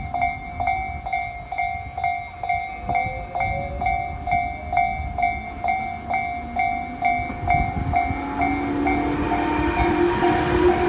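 Japanese level-crossing warning bell ringing its steady kan-kan, about three strikes a second. In the last few seconds a train approaches: a rising whine and growing rumble build under the bell.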